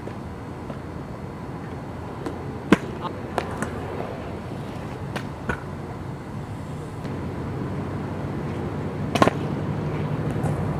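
Scooter wheels rolling on concrete, a low rumble that grows louder near the end as the rider comes close, with a few scattered sharp knocks, the loudest about nine seconds in.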